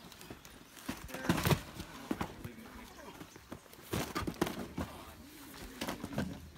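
Irregular knocks and clacks, with a few short bursts of people's voices in between.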